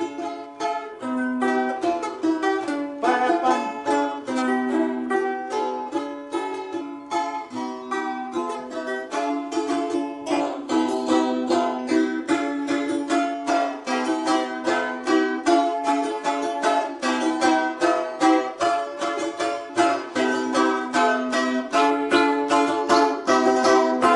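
Three balalaikas played together: rapid plucked and strummed notes, with a low note that keeps returning under the higher lines.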